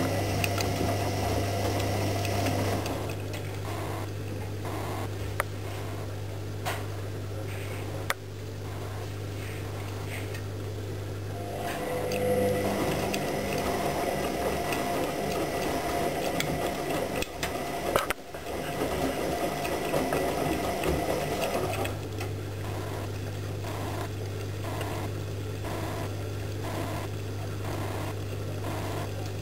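AEG Lavamat 76730 front-loading washing machine tumbling a wet load in its wash phase. The drum motor hums steadily, drops back about three seconds in and again a little past twenty seconds, leaving a softer knocking about once a second, then picks up again.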